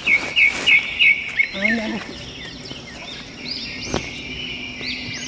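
Birds singing: a quick run of four loud chirps, then scattered arching chirped notes, over a steady high insect drone.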